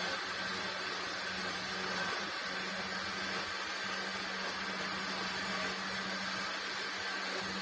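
Electric countertop blender running steadily, its motor humming under an even whirring as it blends a thick liquid mix of groundnuts, bananas, milk and water.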